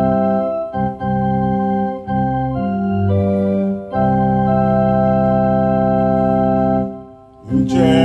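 Electronic keyboard on an organ voice playing sustained hymn chords, the chord changing every second or two with brief breaks between. It dips to a lull near the end, and a man's singing voice comes in just as it ends.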